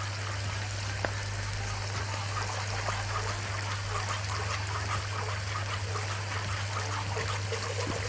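Wire whisk stirring thickening béchamel sauce round an aluminium pot: a continuous wet swishing with light strokes of the whisk against the pot and one sharper tick about a second in, over a steady low hum.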